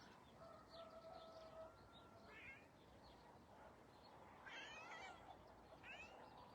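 A cat meowing faintly three times, with a faint rooster crow near the start.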